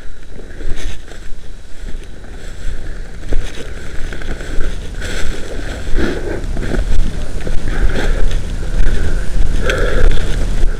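Wind buffeting the microphone in a heavy low rumble, with rustling and crunching of dry grass and leaves as someone moves through it; the rustling swells louder several times.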